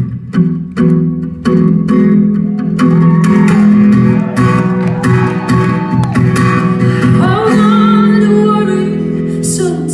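Instrumental break in a live pop song: strummed guitar chords over sustained band chords, with no sung words.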